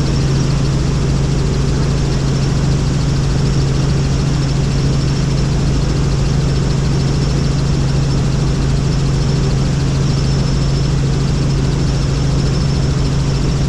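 Helicopter running steadily, a constant low drone from its engine and rotor with a faint high whine on top.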